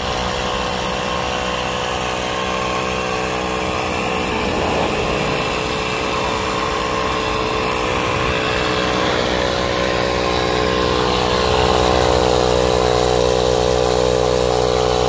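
Portable air compressor running steadily while inflating a flat run-flat tire, with a constant motor drone that grows slightly louder near the end.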